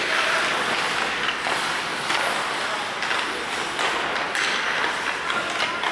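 Ice hockey play in an arena: skate blades scraping the ice in repeated hissing strokes, with a few sharp knocks of sticks and puck.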